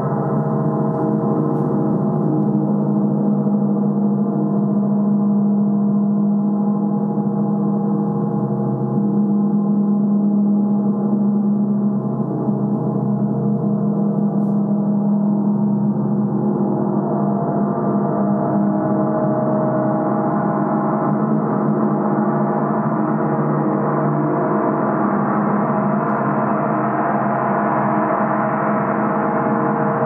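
Large 60-inch symphonic gong sounding continuously: a dense, steady wash of many overlapping tones. It grows slightly brighter after about halfway.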